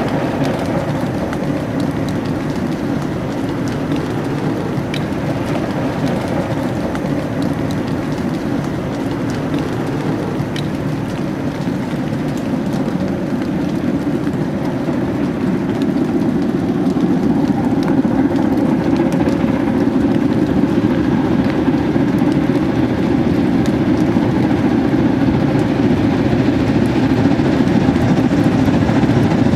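A DR class 52.80 steam locomotive working a freight train: a steady, dense rushing noise that grows louder about halfway through.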